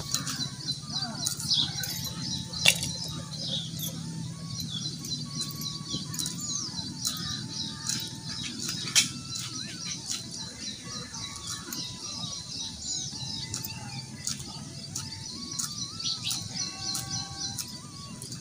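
Green chillies being sliced on a viḷī, a fixed-blade floor cutter, with light, irregular ticks as the cut pieces drop into a metal wok. Birds chirp and twitter throughout.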